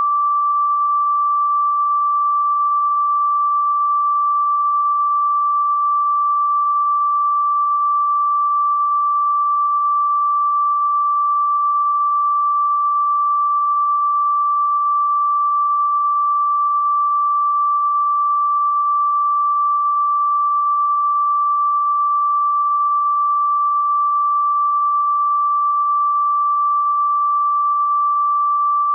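A single pure electronic sine tone held at one steady, fairly high pitch, unchanging and with no other sound: a continuous 'healing frequency' test-tone style drone.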